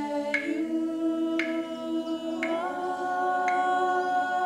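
A woman singing long held notes with no instrument behind her, her pitch shifting a couple of times. A sharp wooden click of sticks struck together comes about once a second, keeping time.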